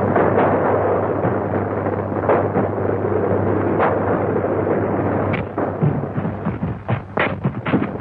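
Old film soundtrack: a dense, steady roar of noise for about five seconds, then a quick string of sharp cracks and thumps.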